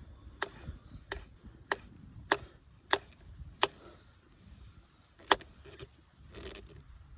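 A series of sharp, short knocks: six coming evenly about every 0.6 s, then a pause and one more, louder, about five seconds in.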